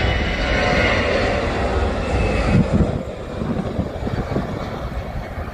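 Jet engines of an Airbus A320-family airliner at takeoff thrust during the takeoff roll: a loud, steady rushing noise over a deep rumble. The higher hiss fades about three seconds in.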